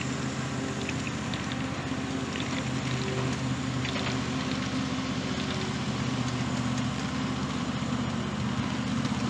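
A small engine running steadily, a constant droning hum with faint clicks over it.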